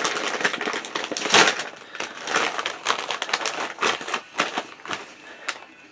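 Snack wrapper crinkling and rustling as it is handled and opened, loudest about a second and a half in and thinning out near the end.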